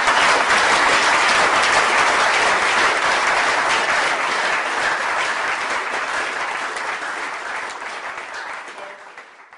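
Audience applauding, full and steady at first, then slowly dying down and fading out near the end.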